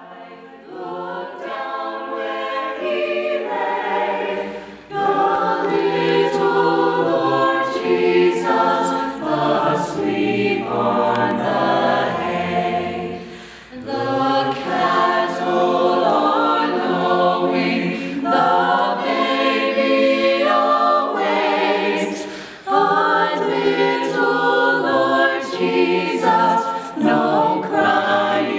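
An a cappella vocal group singing a song in harmony, with no instruments. It starts softly and grows louder over the first few seconds, then goes on in long phrases with short breaks between them.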